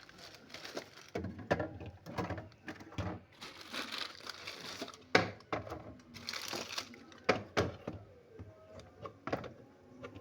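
Plastic snack packets crinkling and rustling as they are handled, with several sharp knocks or clicks, the loudest about five seconds in.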